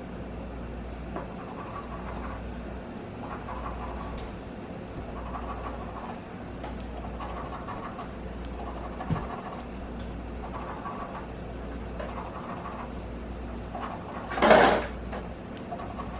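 Scratching the silver coating off an instant lottery scratch ticket: short repeated scraping strokes, about one a second. One louder short rush of noise comes near the end.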